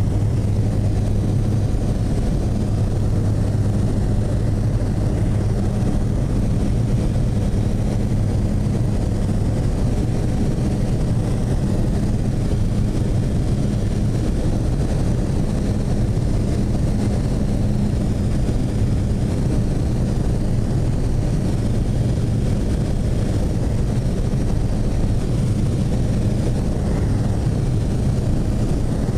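Steady low drone of a light amphibious plane's engine and propeller, heard from inside the cabin in cruising flight, holding one pitch throughout.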